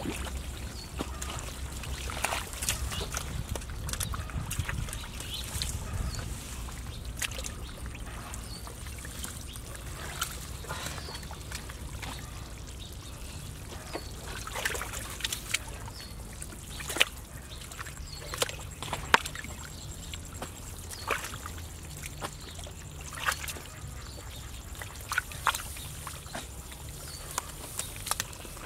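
Hands squelching and splashing through shallow, watery mud, with irregular wet slaps and splats.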